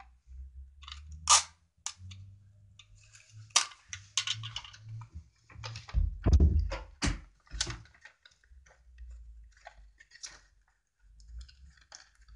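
Hands handling a small paper box and pressing it against a wooden tabletop: irregular sharp taps and clicks of paper and card, with a few louder knocks.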